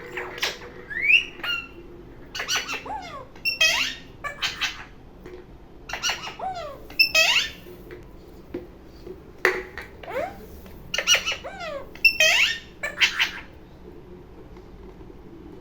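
A green parrot squawking and chirping in short bursts of sharp calls with quick pitch glides, coming in clusters every second or two, then stopping.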